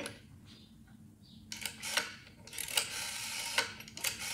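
Rotary telephone dial being dialled: after a quiet start, the dial whirs back several times in a row, each return ending in a sharp click, as one digit after another is dialled.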